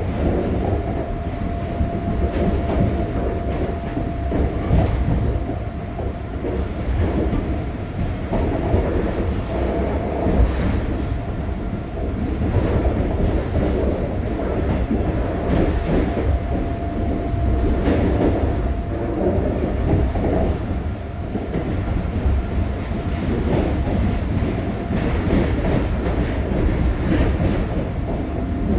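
Cabin running noise of a retrofitted resistance-control Korail Line 1 electric train under way: a steady low rumble of wheels on rail with scattered clacks over the rail joints. A thin steady whine runs through the first third and comes back near the end.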